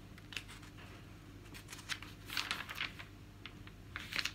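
Paper rustling as magazine pages are turned and handled, in several short bursts, strongest a little past the middle and near the end.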